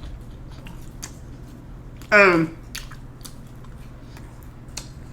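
A person chewing food close to the microphone, with small wet mouth clicks throughout. A short vocal sound, falling in pitch, comes about two seconds in.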